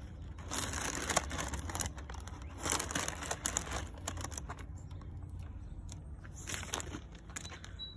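Clear plastic zip-lock bags of spare shoelaces crinkling and rustling as they are handled, in irregular bursts that are busiest in the first half and thin out later.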